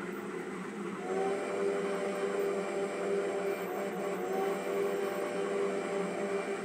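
DC-powered N-scale model trains running: a steady electric-motor whir with wheel hum, which grows louder about a second in and holds through a slight waver.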